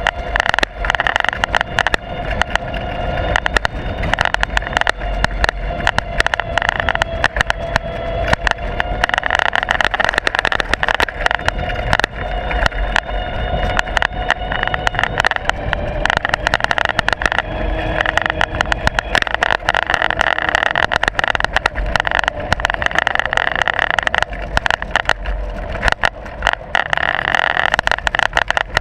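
Ride noise from a camera mounted on the moving vehicle: a steady whine with constant rattling and knocking, which the uploader puts down to a poor camera mount.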